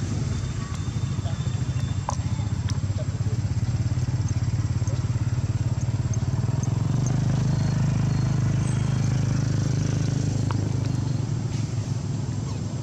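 A motor engine running steadily nearby, a low continuous hum.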